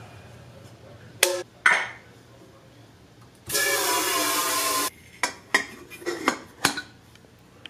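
Stainless-steel stovetop kettle lifted with two sharp metal clanks, then tap water running into it from the kitchen faucet for about a second and a half. This is followed by a quick series of metal clicks and clinks as the kettle's lid is pressed shut.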